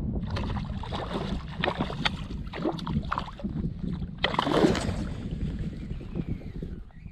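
Wind rumbling on the microphone, with small waves lapping and slapping at the water's edge. A brief louder rush comes about four and a half seconds in, and the wind eases toward the end.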